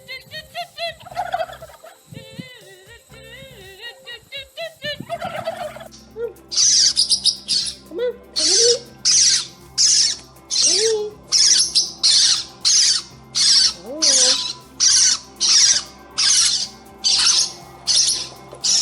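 Pet parrot warbling and chirping in wavering whistles, then, about six seconds in, a long run of harsh screeches repeated evenly, about one and a half a second.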